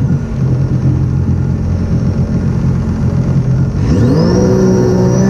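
Supercharged three-cylinder engine of a Sea-Doo RXP-X 300 jet ski running steadily at speed, then revving up about four seconds in, its pitch climbing quickly and settling higher. A thin high supercharger whine rises along with it.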